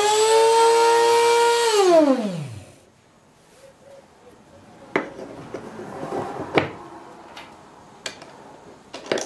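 Dremel rotary tool clamped in a homemade jump ring cutting jig, running at a steady high speed and then spinning down with a falling whine over about a second. A few sharp clicks and knocks follow as the jig is handled.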